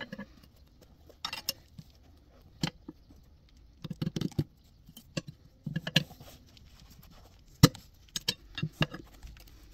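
Irregular metallic clinks and knocks from a wheel and tools being handled while a new tyre is fitted to its rim, one sharp knock late on the loudest.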